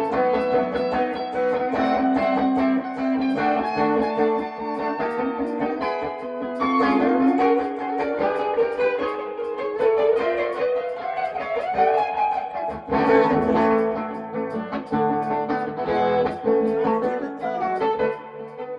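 Guitar playing an instrumental passage of a rock and rhythm-and-blues song, with overlapping sustained notes and some bent notes; it falls away near the end.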